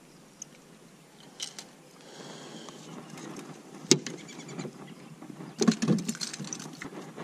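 Knocks and clatter of a metal-framed landing net being handled and set down on the deck of a small fishing boat, with a sharp click about four seconds in and a short flurry of knocks near six seconds.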